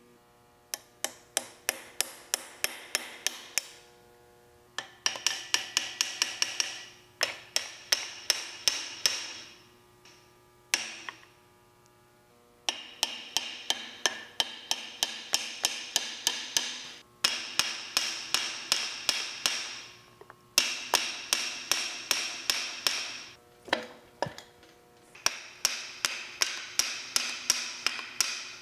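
Rapid metallic clicking from the cast-iron lathe tailstock as its handwheel is spun by hand. The clicks come in runs of two to three seconds, about five a second, with a high ringing that fades after each run.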